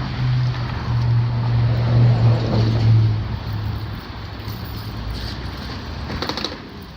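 Car engine running with a steady low hum that dies away about three to four seconds in, followed by a few sharp clicks near the end.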